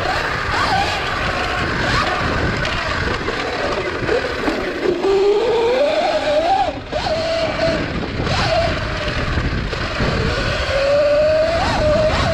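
72V Sur-Ron electric dirt bike being ridden: the motor's whine climbs and falls as the throttle opens and closes, over the rattle of its chain drive and wind buffeting the microphone.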